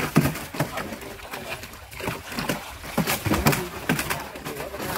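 A large carp thrashing and splashing in a plastic barrel of water, with irregular slaps and sloshes.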